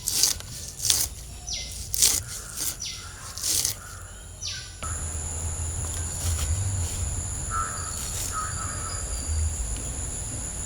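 Outdoor rural ambience. In the first half, sharp clicks mix with short bird calls that sweep downward. About halfway through the sound changes abruptly to a steady high-pitched insect drone over a low rumble.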